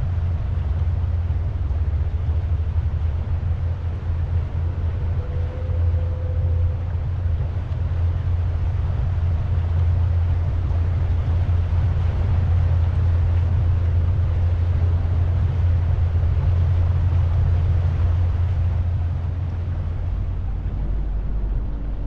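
Pontoon boat's motor running steadily at cruising speed, a constant low hum with the hiss of water and air moving past the hull.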